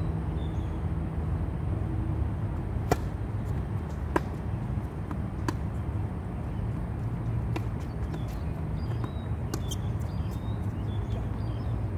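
Sharp pops of a tennis ball striking the hard court and strings, a few seconds apart, over a steady low rumble.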